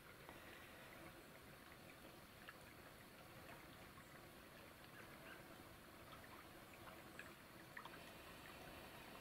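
Near silence: faint outdoor ambience, a soft even hiss with scattered tiny ticks.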